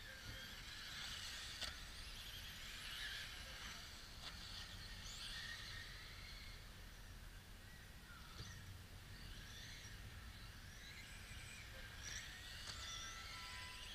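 Faint, distant high-pitched whine of radio-controlled racing cars' motors, wavering and rising and falling in pitch as the cars accelerate and brake around the track, with a few sharp ticks and two short steady tones near the end.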